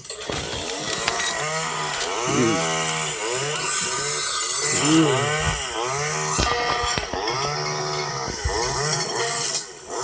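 Chainsaw engine revving up and falling back again and again, about once a second, between spells of steady idling, as it cuts through a wooden chair.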